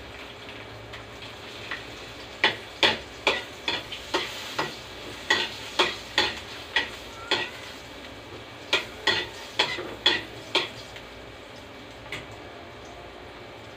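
Metal spatula scraping and clacking against a metal frying pan as garlic is stirred, sautéing in margarine, with a steady faint sizzle underneath. The strokes come about two a second in one run, pause briefly, then come in a shorter second run, with a single stroke near the end.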